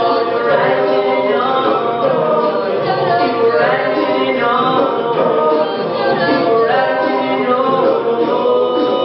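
An a cappella vocal group singing in harmony, several voice parts sounding together with no instruments.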